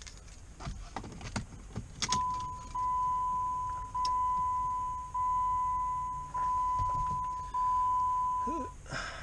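Keys jingle at the ignition of a Jeep Grand Cherokee WK, then the dashboard warning chime sounds: one steady high tone repeated six times, about a second and a quarter apart. It stops just before the end.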